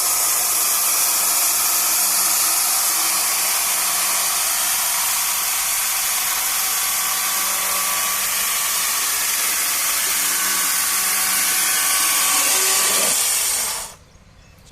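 Sawmill saw cutting through a teak log: a loud, steady, hissing saw sound that cuts off suddenly near the end.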